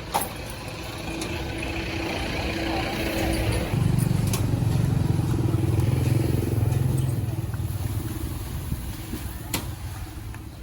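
A motor engine running, growing loud about four seconds in and then fading off, like a vehicle passing close by.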